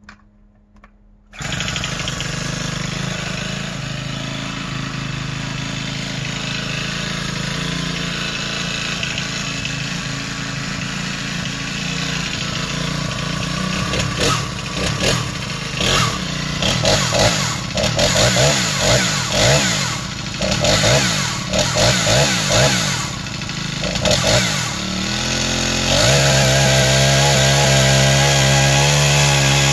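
Senix 50cc four-stroke chainsaw running. It comes on suddenly about a second in and runs steadily for a while. From about the middle it is revved up and down in a quick series of bursts, and near the end it is held at high revs.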